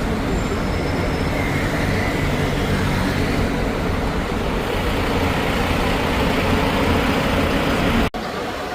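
A sightseeing bus's engine and road noise heard on board, a steady low rumble. It cuts off abruptly about eight seconds in.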